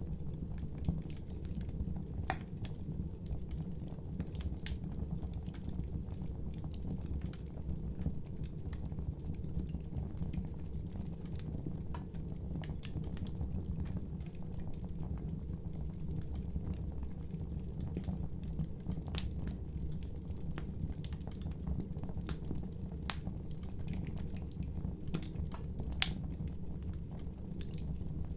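Wood fire burning: a steady low rumble of flame with scattered crackles and pops, the sharpest pop near the end.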